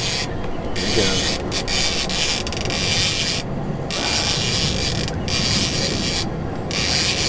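Fishing reel being worked while fighting a striper, its gears and drag giving a steady mechanical whirring and ratcheting. The whirring breaks off briefly about three times.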